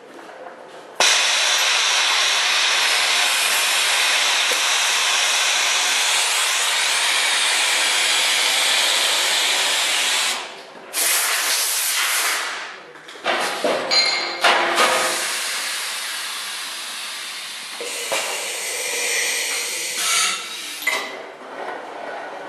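Vacuum tube lifter drawing air with a loud, steady hiss that starts abruptly about a second in. Near the middle it breaks off and comes back in shorter rushes, with a few sharp knocks as the suction head meets the gas cylinder.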